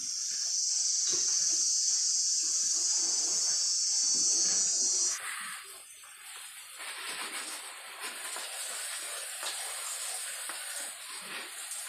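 Backpack sprayer misting disinfectant over a bamboo-slat poultry-house floor, a steady spray hiss. A loud, high hiss cuts off abruptly about five seconds in, and a softer, fuller hiss carries on after it.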